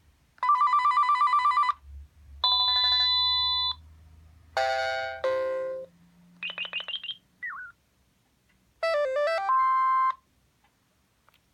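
Panasonic KX-TG2257 cordless phone handset playing its built-in electronic ringtones one after another, each for a second or two with short gaps between. They include a rapid trill, a held chord, falling tones, a run of about five quick beeps and a short stepping melody.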